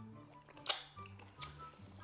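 Background music with a bass line of held low notes, and one sharp click a little under a second in.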